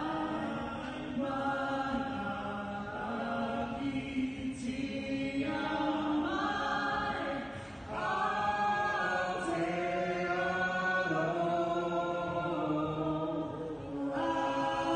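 A national anthem sung by many voices in a basketball arena, in slow, held notes.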